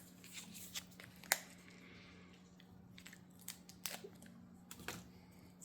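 A few faint clicks and rustles of a plastic lickable cat-treat tube being handled and torn open, with one sharp click about a second in.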